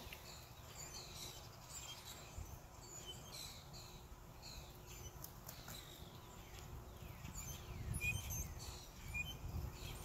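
Birds chirping: many short, high, falling notes repeated over and over, faint, over a low rumble that grows louder about eight seconds in.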